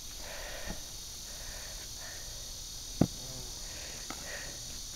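Quiet outdoor background with a steady high-pitched drone of insects, broken once about three seconds in by a single sharp knock.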